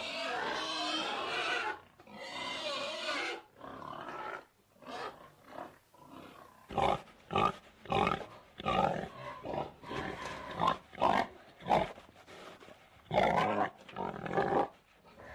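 A pig grunting: a few longer drawn-out grunts at first, then about halfway through a quick string of short grunts, roughly two a second.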